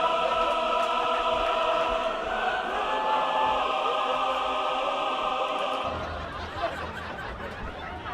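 Choral music: voices hold a sustained chord that cuts off about six seconds in, leaving the murmur of a room.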